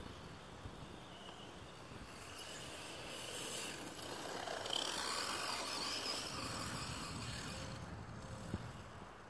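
Redcat Blackout XTE RC monster truck running on a 3S battery across grass: a faint motor whine and tyre rustle that grows louder as the truck passes close about halfway through, then fades as it drives off, with a short knock near the end.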